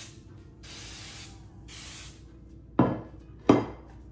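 Aerosol cooking spray hissing in two short bursts as a loaf dish is greased, followed by two loud knocks about three seconds in.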